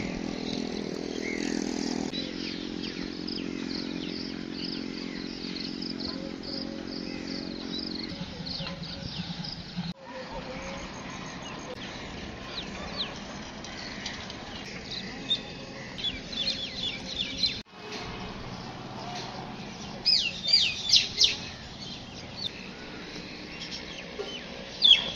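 Many small birds chirping with short, sharp calls, busiest and loudest about two-thirds of the way through and again near the end. A steady low hum runs under the first eight seconds or so.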